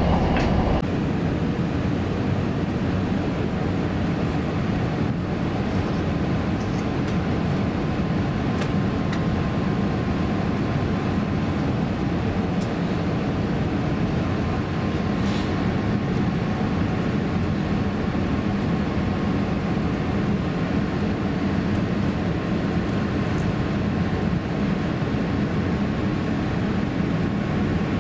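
Steady low cabin rumble inside an Airbus A350-900 airliner on final approach, from its engines and airflow, with a faint steady whine above it.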